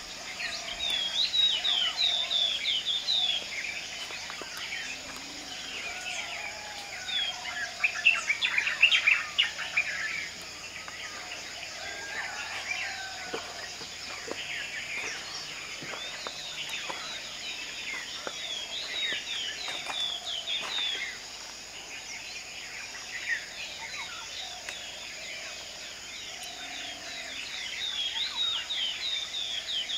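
Night-time chorus of wild creatures: a steady high insect drone with runs of quick chirping calls over it, busiest about eight to ten seconds in.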